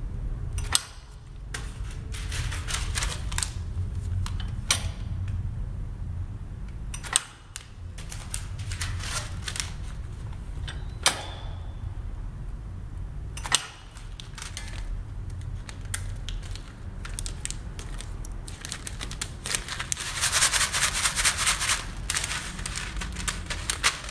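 Foot-pedal impulse sealer's jaw clacking shut and springing open as bags are sealed, about five sharp clacks, mixed with the crinkling of plastic and foil bags being handled, which is loudest near the end. A low steady hum runs underneath.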